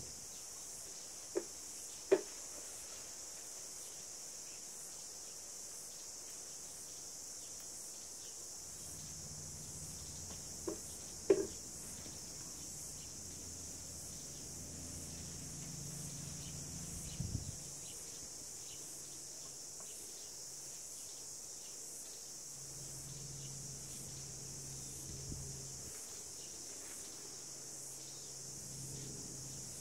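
Steady high-pitched chorus of insects. Two pairs of sharp taps come about two and eleven seconds in, and a softer knock near the middle.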